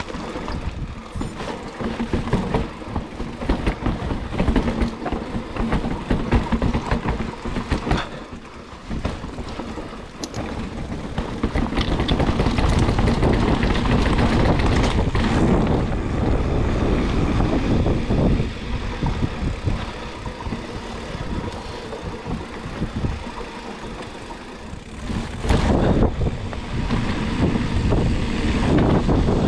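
Riding noise from a mountain bike moving fast over a trail: the rattle and rumble of tyres and frame with frequent knocks over the first ten seconds or so, then a steadier rush of wind on the microphone from about twelve seconds in.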